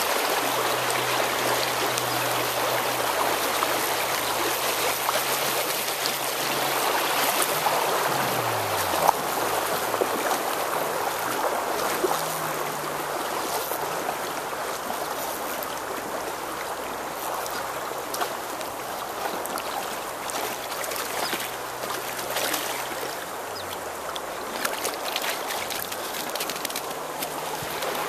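Shallow stream running fast over rocks through a riffle: a steady rush of water.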